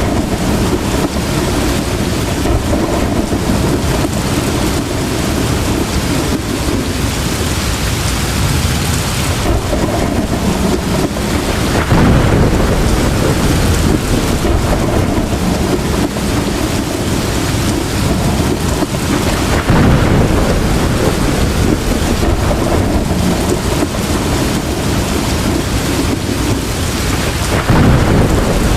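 Heavy rain pouring steadily, with thunder rumbling; the low rumble swells louder about twelve seconds in, again about twenty seconds in, and near the end.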